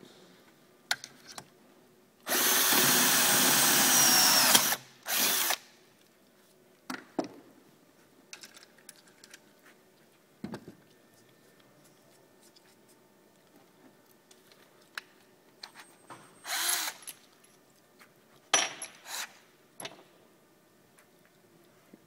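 Cordless drill running under load for about two and a half seconds, drilling a binding screw hole in a roller ski through a metal drilling jig, then a brief second burst. Later come two short drill bursts and scattered light clicks and knocks of tools being handled.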